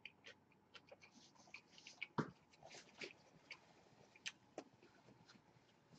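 Faint mouth sounds of people chewing a burger: scattered soft wet clicks and smacks, with a sharper one about two seconds in.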